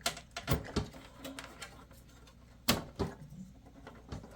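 Scattered clicks and knocks of a Sound Blaster AWE32 sound card being handled and fitted into an expansion slot in a computer case, with a sharper knock about two-thirds of the way through.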